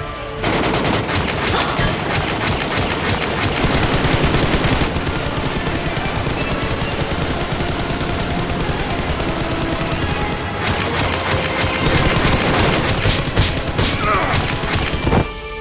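Sustained rapid automatic-gunfire sound effects, shot after shot in dense bursts, with faint music underneath; the firing stops suddenly just before the end.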